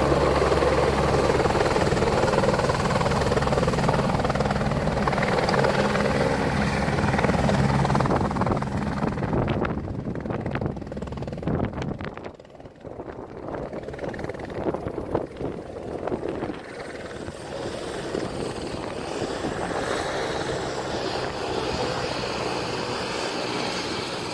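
Helicopter hovering low, its rotor and engine loud and steady, then dying away after about eight to ten seconds. A fainter steady background sound follows.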